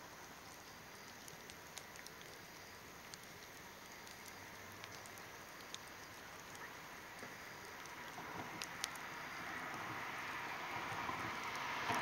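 Log fire in a metal fire pit crackling, with sparse sharp pops over a soft hiss. From about two-thirds of the way in, the steady noise of an approaching vehicle rises and grows louder.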